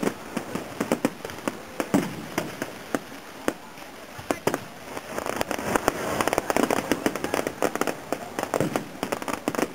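Fireworks going off: a string of sharp bangs and crackles that thickens into dense, rapid crackling about halfway through.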